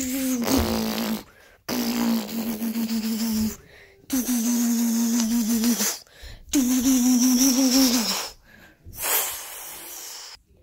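A child making buzzing vocal sound effects with his mouth for a toy ship in flight: four long, level-pitched buzzes with short breaks between them, and a fainter one near the end.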